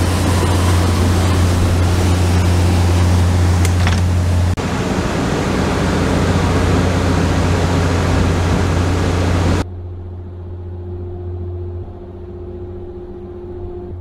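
A motor yacht running at speed under way: a steady low engine drone under loud rushing wind and water. About ten seconds in the rushing cuts off abruptly, leaving a quieter, muffled engine hum.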